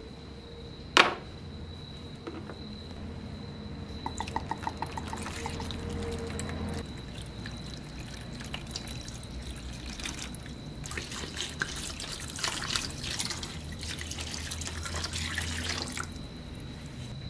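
White vinegar poured from a plastic bottle into a plastic tub over rusty metal parts, trickling and splashing as the tub fills, heaviest in the second half. A sharp knock about a second in, and a faint steady high whine behind it all.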